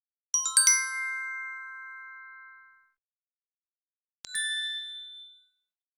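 Bell-like chime sound effects: a quick run of about four bright ding tones that rings out for about two seconds, then a single shorter ding about four seconds in.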